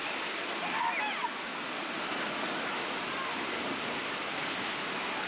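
Steady rush of water pouring down a water-park tube-ride chute. Brief shouts of voices about a second in.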